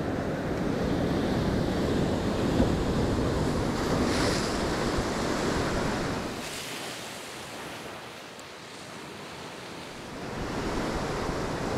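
Ocean surf washing through a tide pool, with wind on the microphone. The wash is strong at first, dies down about six seconds in, and builds again near the end.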